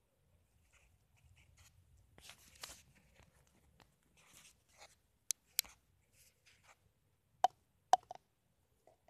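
Close handling noise from a clear plastic cup and a small tool: soft rustling for a few seconds, then five sharp clicks, the loudest two about half a second apart near the end.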